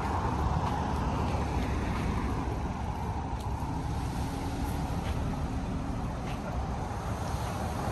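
Steady outdoor background noise with a heavy, fluctuating low rumble.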